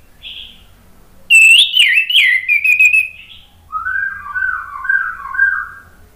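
Orange-headed thrush singing: a short note, then a loud whistled phrase that drops and breaks into quick trills, followed after a brief pause by a lower, softer warbling phrase.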